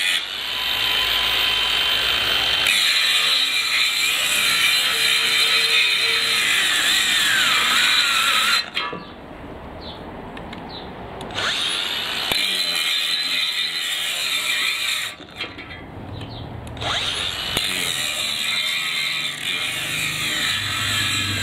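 Cordless 18 V brushless angle grinder cutting. It cuts out twice, spinning down each time, then starts again with a rising whine. The stalling comes from a drained 1.5 Ah battery that keeps stopping.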